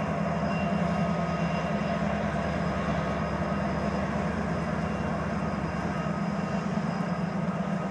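Diesel locomotive engine running, a steady low drone with a few held higher tones, as the train moves slowly past.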